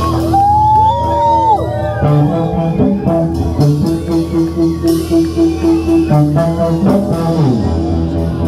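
Live electric blues-rock: a thinline Telecaster-style electric guitar plays lead over drums and cymbals. A held note is bent upward in the first second and a half, followed by repeated sustained notes.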